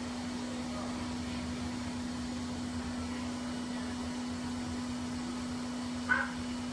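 Pet dryer blower running steadily with a constant motor hum, blowing air through a corrugated hose to dry a wet cat. A short sharp sound cuts in about six seconds in.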